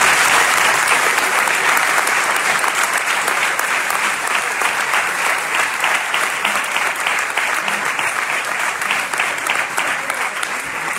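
Audience applauding: many people clapping at once in a sustained round that eases off a little near the end.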